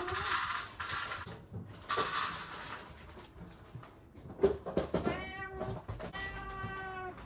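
Domestic cats meowing: a short call about five seconds in, then a longer, steady meow. Earlier come two short bursts of rustling noise.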